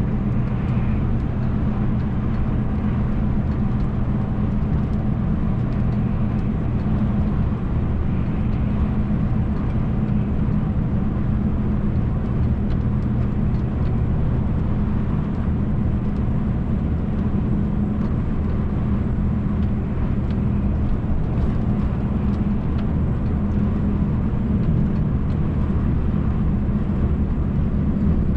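MAN TGX truck's diesel engine running at a steady cruise under road and tyre noise, heard from inside the cab: an even, constant drone.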